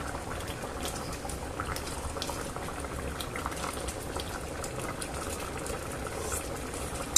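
Potato and mussel stew bubbling at a steady boil in a stainless-steel pot on high heat.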